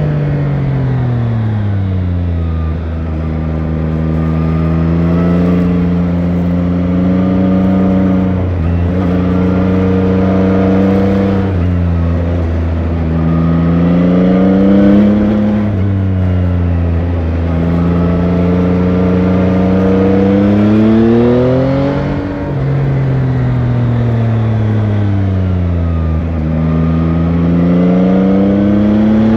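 Yamaha Tracer 9 GT's CP3 three-cylinder engine on the stock exhaust, heard onboard while riding: it repeatedly pulls up through the gears with a climbing pitch, drops sharply at each upshift, and slides down in pitch when the throttle is rolled off.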